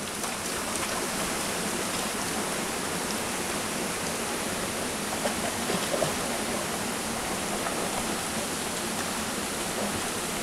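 Steady rush of a mountain stream pouring over rocks into a pool, with a couple of light splashes about five and six seconds in as a Labrador swims through and climbs out.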